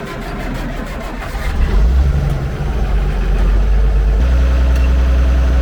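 Tractor engine being started from the cab: the starter cranks with a regular clatter, the engine catches about two seconds in and settles into a steady idle about four seconds in, a cold start before warming up.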